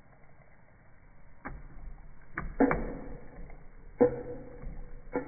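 Mamod TE1a toy steam traction engine starting on its own under steam: a few uneven sharp knocks and puffs, the loudest about four seconds in, then a steady hum as it runs on.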